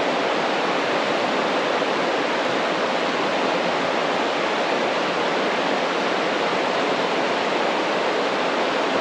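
Waterfall: water rushing steadily, an even, unbroken noise.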